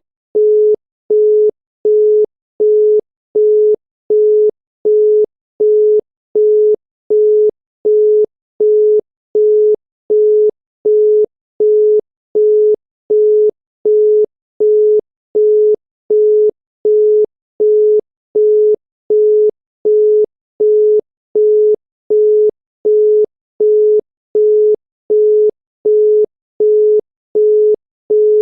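Australian telephone busy tone: a single steady 425 Hz tone beeping on and off at an even cadence, 0.375 s on and 0.375 s off, signalling that the called line is engaged.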